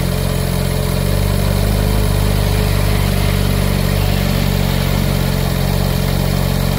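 Ferrari 458's 4.5-litre V8 idling steadily while the freshly filled power steering system is bled.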